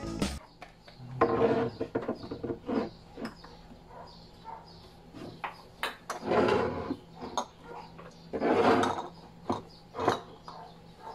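Glass storage jars with metal screw lids being set down and slid onto wooden shelves: a string of irregular knocks and short scrapes, with quiet gaps between them.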